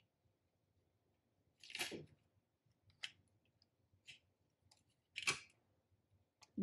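Paper banknotes rustling as fingers leaf through a stack of US dollar bills: four short flicks with near silence between them.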